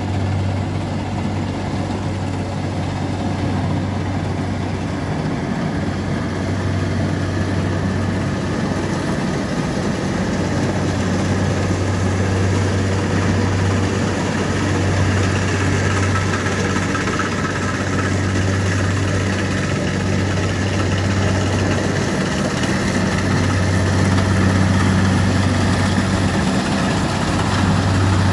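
Kubota DC60 combine harvester's diesel engine running steadily with a low hum, its machinery noise swelling slightly towards the end.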